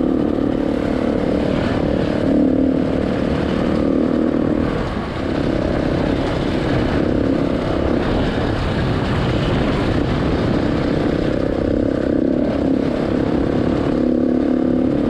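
KTM 690 Enduro's single-cylinder engine running steadily under way on a gravel track. The engine note eases briefly about five seconds in, then holds steady again.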